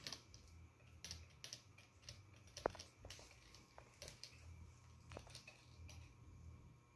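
Near silence with faint, scattered small clicks and ticks from Chihuahua puppies in their pen, one sharper click about two and a half seconds in.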